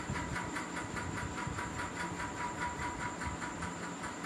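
Steady rhythmic background noise: a soft hiss pulsing evenly about four to five times a second over a faint steady hum.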